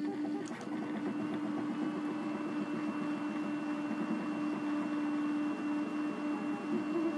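RepRap Prusa Mendel 3D printer running mid-print: its stepper motors whir steadily as the hot end moves over the part, with a thin high tone joining about a second in.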